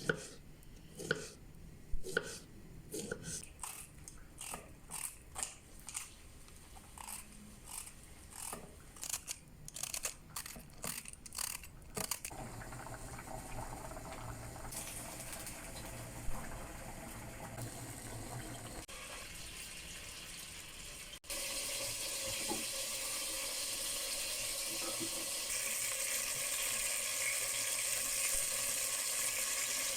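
Kitchen work sounds: a quick run of sharp knocks and clicks for about twelve seconds, then running water with a low hum. After a sudden change about two-thirds of the way in, a steady sizzling of food frying in a pan takes over and grows slowly louder.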